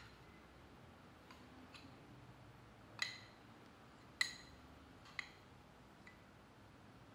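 Metal spoon clinking lightly against glass bowls while scooping and scraping out peanut butter, a few separate ringing clinks, the three sharpest about three, four and five seconds in.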